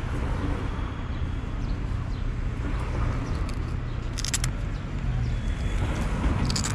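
Steady low hum of vehicle engines and street traffic. Short scratchy rasps come about four seconds in and again near the end as the phone holder's fabric cover is handled.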